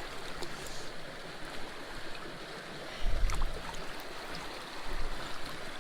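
Small creek flowing steadily, with a brief low rumble about three seconds in and a weaker one near the end.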